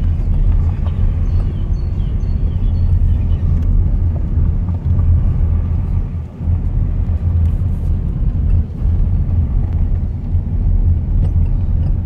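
Car driving along an unpaved gravel road: a steady low rumble of tyres and engine, dipping briefly about halfway through.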